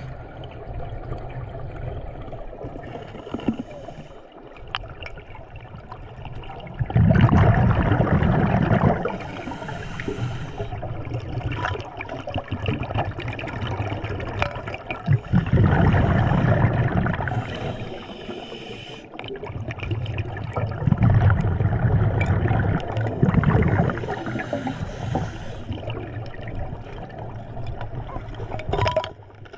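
Water bubbling and gurgling in loud surges a few seconds apart over a steady rush, with a brief hiss after some surges.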